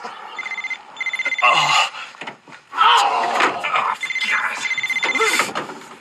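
A phone ringing in repeated bursts of a rapid trilling tone, with men's straining, groaning voices between and over the rings.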